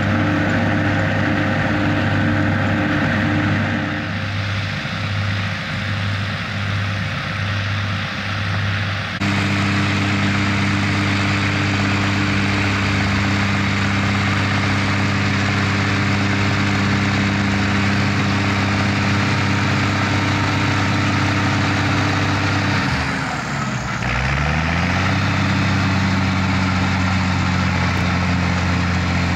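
Schlüter tractor's diesel engine running steadily at work in the field. About nine seconds in the sound changes abruptly, and later the engine note dips and climbs back up.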